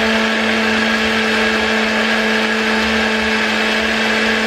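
Electric blender running at a steady speed, its motor holding one unchanging pitch as it blends collard-green juice.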